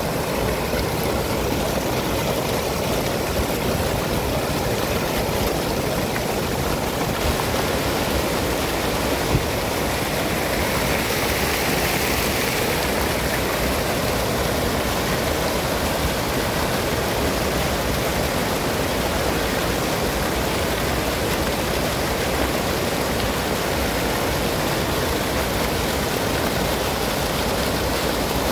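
Fountain's arcing water jets splashing steadily into the pool.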